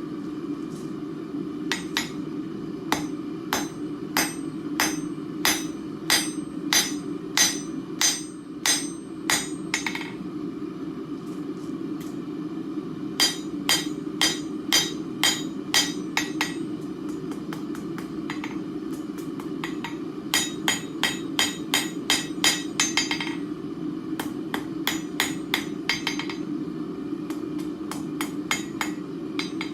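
Blacksmith's hammer striking hot steel on an anvil, flattening the end of a rat tail hinge into a leaf shape. The blows come in runs of about two a second, each with a short metallic ring, with pauses between the runs, over a steady low hum.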